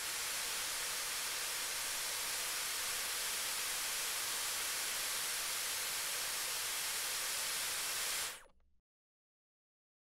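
Dyson Airwrap multi-styler blowing air through its smoothing brush attachment at full power, a steady airy hiss of drying airflow that fades out about eight seconds in.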